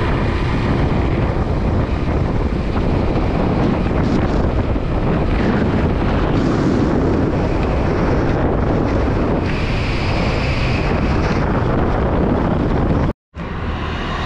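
Wind rushing over the microphone of a moving motorbike, a loud steady rush. It cuts off abruptly about a second before the end and gives way to quieter roadside traffic noise.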